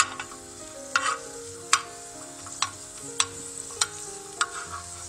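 Cashews frying in ghee in a cast-iron skillet, a steady sizzle, with a metal spoon scraping and clinking against the pan every second or so as they are stirred.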